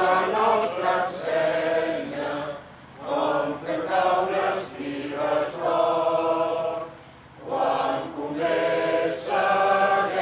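Crowd of people singing together in unison, long sung lines with short breaks between phrases about a third of the way in and again about three quarters of the way through.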